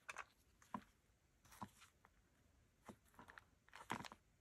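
Near silence with a few faint, scattered taps and soft rustles of paper and small stickers being handled on a work surface.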